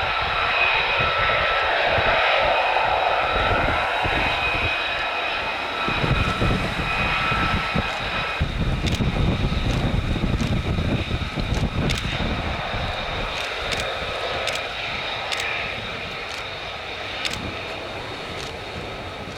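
F-35A Lightning's F135 turbofan running with a steady high whine. A deeper rumble swells in the middle, a few sharp clicks come in the second half, and the sound eases off near the end.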